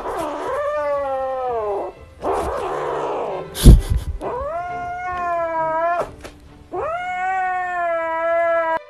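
Grey kitten meowing: three long, drawn-out meows, the first falling in pitch, with a harsher, noisy cry between the first two. A loud thump comes a little before the middle.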